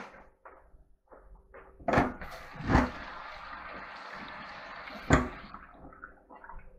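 Off-camera kitchen handling noises: two loud knocks, then about three seconds of steady rushing noise, cut off by another sharp knock.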